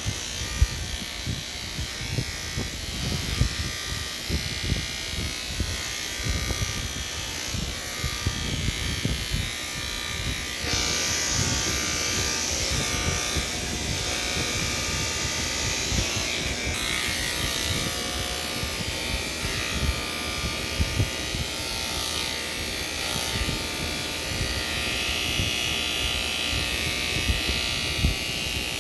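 Electric hair clippers buzzing steadily as they shave hair close on the side of a head, with low knocks and bumps underneath. The buzz turns brighter and hissier about eleven seconds in.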